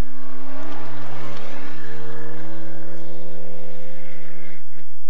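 Fiat 128 3P rally car's engine held at high revs, a steady note with a slight rise in the middle, as the car passes close by. The sound breaks off near the end.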